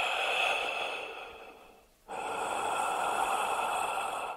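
Steam engine hissing steadily, fading away over the first two seconds; a second stretch of hiss starts abruptly about two seconds in and cuts off sharply near the end.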